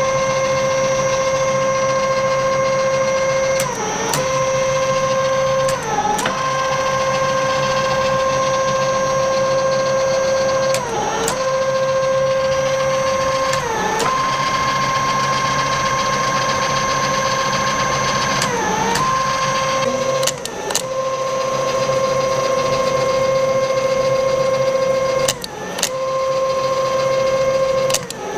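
An old horizontal production milling machine running on its own through its auto-cycle, driven by three-phase motors from a VFD: a steady high whine, broken every few seconds by a sharp click where the whine briefly dips in pitch and recovers, about eight times.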